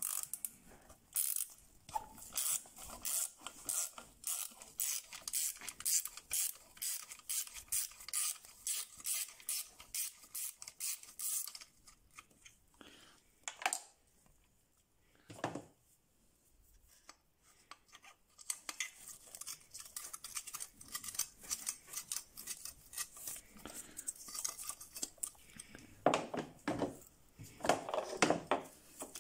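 Ratchet wrench clicking in a steady run of about three clicks a second as a nut on the turbo solenoid valve is undone. It stops for several seconds about halfway, then clicks again.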